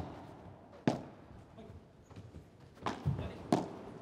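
Padel rally: the ball being struck by rackets and bouncing off the court and glass walls. There is a sharp pop about a second in, then two more close together near the end, over low crowd noise.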